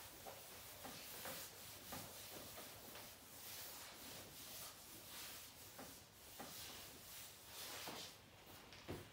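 Cloth duster wiping a whiteboard: a faint, uneven swishing rub in repeated strokes, with a sharp click near the end.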